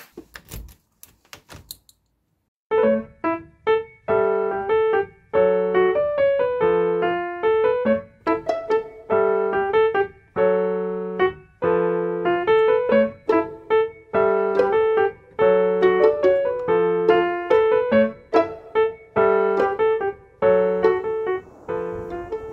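Piano music: a slow, repeating melody of struck notes that ring and fade, with a low note sounding under each phrase, starting about three seconds in after a few soft clicks.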